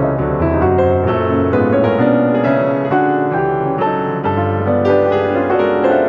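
Background piano music, a continuous flowing run of notes.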